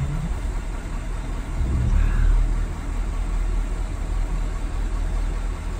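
Car engine running at idle, a steady low rumble.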